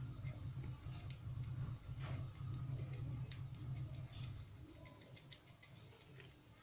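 Faint, irregular small clicks and rustles of a beedi being emptied of its tobacco by hand. A low hum runs underneath and fades out about two-thirds of the way in.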